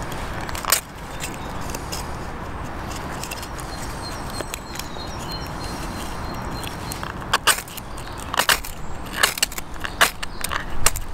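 Ferrocerium fire steel scraped hard with a striker to throw sparks onto a feather stick and tinder: a single sharp rasp about a second in, then a quick run of about eight rasping strikes over the last four seconds.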